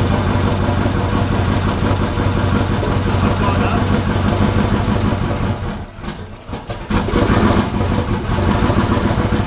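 Twin-turbo 408 cubic-inch LS V8 idling steadily during its first start-up tuning. A little past halfway the sound falls away for about a second, then the same idle comes back.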